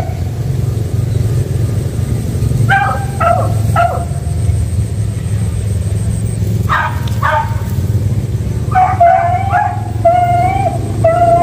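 Hunting dogs, beagles among them, baying and yelping. There are short calls a few at a time, then longer, wavering bays in the last few seconds, over a steady low rumble. This is the cry of hounds working a quarry, a mongoose, in the rice.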